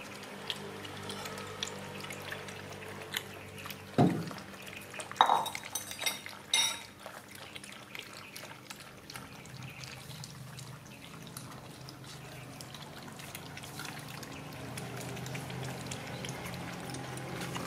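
Several puppies lapping milk from a shallow plastic tray: many quick, wet licking clicks and small splashes. A few louder knocks stand out about four to seven seconds in.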